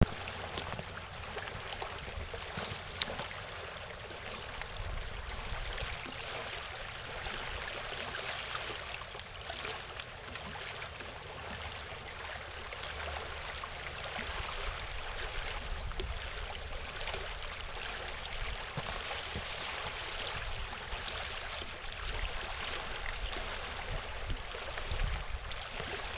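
Wind buffeting the microphone, with small waves lapping on a gravel lakeshore: a steady rushing noise with a low rumble. A single brief click about three seconds in.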